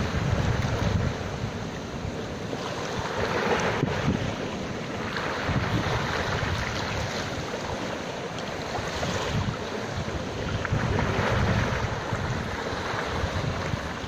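Sea surf washing ashore, swelling and easing every few seconds, with wind buffeting the microphone.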